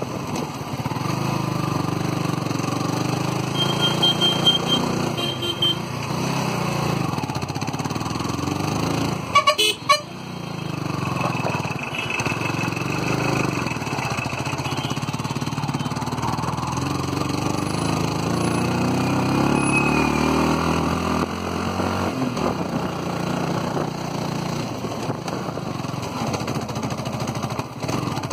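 Yamaha R15 motorcycle engine running under way, heard from a camera mounted on the bike, with road noise. Short horn beeps come about four to five seconds in, and a brief loud knock about ten seconds in.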